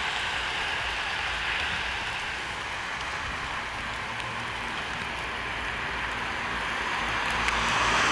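Steady rain falling on pavement and a street, an even hiss that swells louder near the end.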